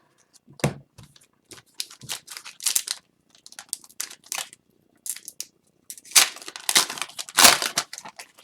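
Hockey trading cards being handled: quick rustles and dry clicks as the cards are slid and flipped, busier and louder about six seconds in.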